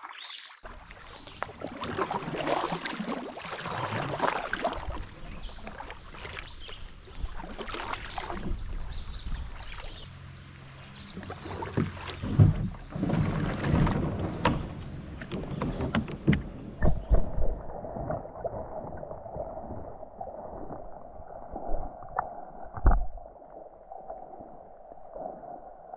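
Kayak paddle strokes dipping and splashing in creek water, with a few sharp knocks against the kayak. About seventeen seconds in, the sound turns dull and muffled once the microphone is underwater.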